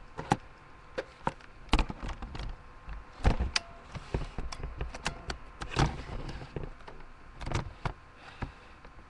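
A run of irregular sharp clicks and knocks, about a dozen, with the loudest a little past three seconds in and again around six and seven and a half seconds.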